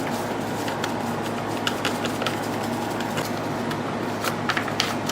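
Scattered light clicks and taps of debris being knocked and cleaned out of a plastic remote-control case, coming faster near the end, over a steady background hum.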